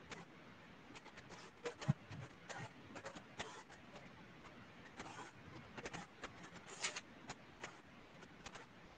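Faint, irregular clicks and light taps with no steady rhythm, one sharper tap a little under two seconds in and a brief scrape about seven seconds in: small handling noises near the microphone.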